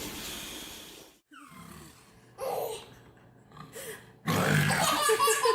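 A person making loud grunting, snore-like noises, briefly once and then again from about four seconds in.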